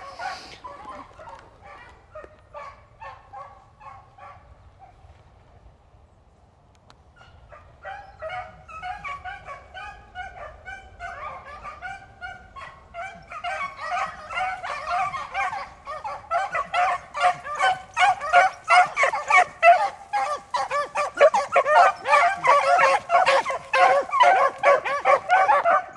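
A pack of beagles baying while running a rabbit's scent trail. There are a few scattered bays at first and a short lull, then more hounds join from about eight seconds in, and from about fourteen seconds in they bay together in a loud, steady chorus.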